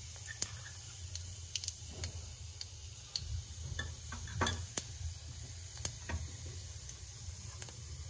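Cumin seeds sizzling in hot oil for a tempering (phodni), with scattered sharp pops and crackles as the seeds splutter, the loudest about halfway through, over a low steady hum.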